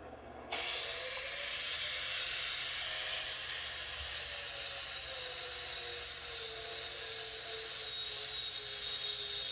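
Handheld power grinder starts up about half a second in and runs steadily, grinding down weld seams on steel stair treads. Its motor tone sinks slowly as the disc is pressed into the metal.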